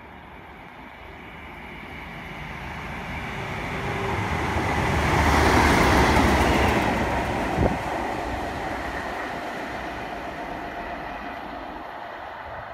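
Class 37 diesel locomotive 37401, with its English Electric engine, passing through the station without stopping. The engine and the wheels on the rails grow louder over a few seconds, peak about halfway through, then slowly fade as it recedes. There is one sharp knock shortly after the peak.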